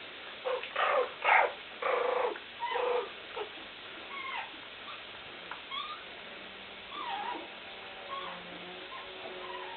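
Month-old Kleinspitz puppies yapping and squealing as they play-fight: a quick run of loud, high yaps in the first three seconds or so, then thin whining squeaks that slide up and down in pitch.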